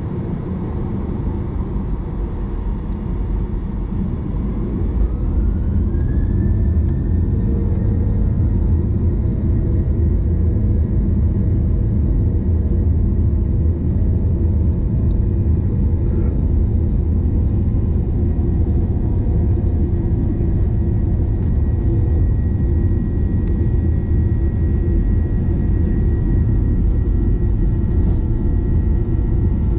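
Boeing 737-800's CFM56-7B turbofan engines spooling up to takeoff thrust, heard inside the cabin. A whine rises in pitch and the sound grows louder over the first several seconds, then settles into a steady, loud engine rumble as the plane accelerates down the runway.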